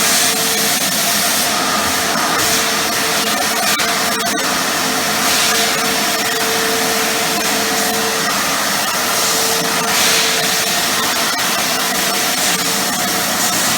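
Titan TTB350VAC wet and dry vacuum cleaner running steadily, its motor hum joined by a rushing hiss of air at the nozzle that swells and eases several times.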